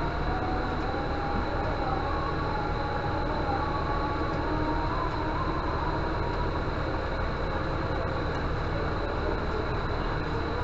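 Steady background noise: a constant low rumble and hiss with a thin, steady high whine and faint wavering tones, and no distinct events.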